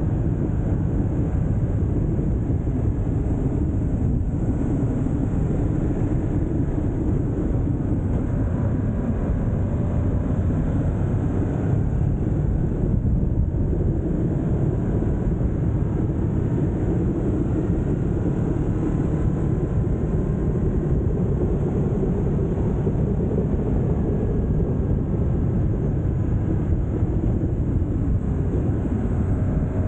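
Ducati Multistrada motorcycle on the move, its engine running steadily under heavy wind rush on the camera microphone.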